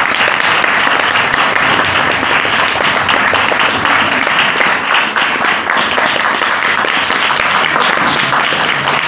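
A group of people clapping their hands in steady applause.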